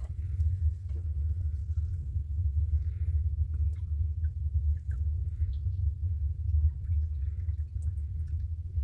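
A steady low rumble throughout, with faint clicks and rustles of a cardboard juice carton being opened and handled. Near the end, the soft sound of juice being poured into a glass.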